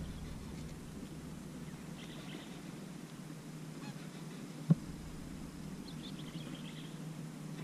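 Spinning reel being cranked steadily on a lure retrieve, with one sharp click a little past halfway.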